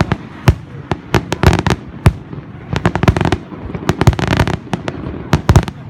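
Aerial fireworks shells bursting: a rapid, irregular string of sharp bangs, several a second and often in close clusters.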